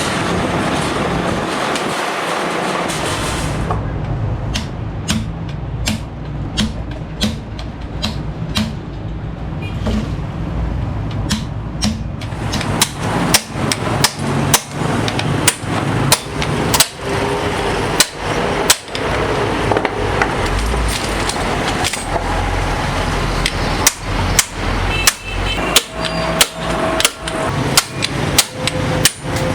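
A hammer striking metal again and again at a steady pace, about one to two blows a second, over a steady background noise.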